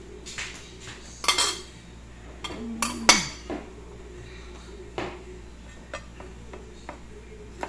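Kitchenware clinking and knocking on a counter, then a chef's knife tapping on a plastic cutting board as tomato is sliced. The loudest knocks come about one and three seconds in, with lighter taps after.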